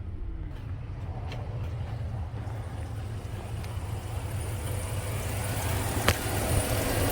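2003 Dodge Ram's 4.7-litre V8 running steadily, with a single sharp click about six seconds in. The engine is building pressure in its cooling system, which the mechanic suspects is a blown head gasket letting combustion gas into the coolant.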